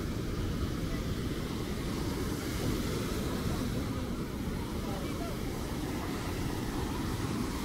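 Ocean surf washing onto the beach with wind rumbling on the microphone, a steady low roar.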